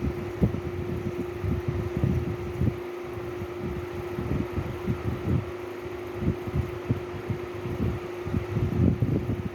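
A steady mechanical hum with one constant tone, under irregular low thuds and rumbling that come in clusters every couple of seconds.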